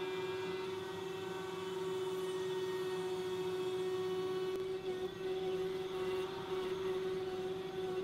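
Table-mounted router spinning a flush-trim bit with a steady whine while a wood template is fed around it, the bit's bearing riding against the speaker frame. The sound wavers in level in the second half as the bit takes the cut.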